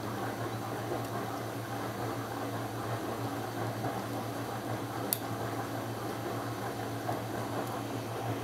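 Steady background hum and hiss, with one sharp, brief click about five seconds in.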